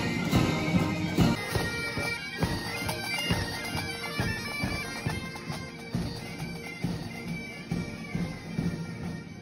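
Bagpipes of a marching military pipe band playing, with regular beats under the held drone notes.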